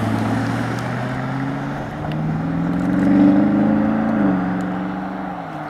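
Camouflaged BMW X7 prototype SUV accelerating away, its engine note rising, then stepping down in pitch twice, about four seconds in and again near the end. The sound peaks partway through and fades as the car pulls away.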